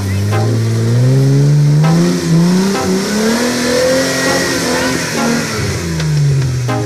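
Jeep Wrangler engine revving hard as the Jeep pushes through a mud hole, its pitch climbing steadily to a peak about four seconds in, then falling away as the driver eases off. Mud and water splash from the spinning tyres.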